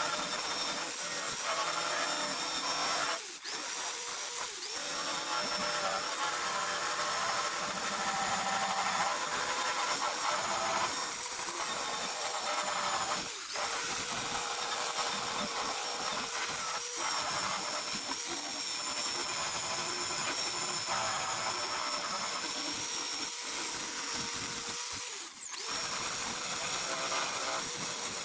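A power tool spinning a wire wheel against sheet-metal bodywork, running steadily with a high, gritty whir and briefly easing off and spinning back up about three or four times.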